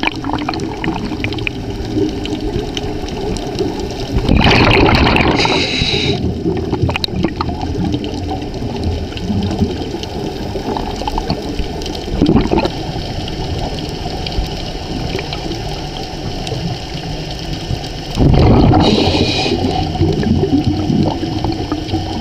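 Scuba diving heard underwater: a steady muffled wash of water noise, with two loud bubbling surges of exhaled regulator bubbles about fourteen seconds apart, one about four seconds in and one near the end.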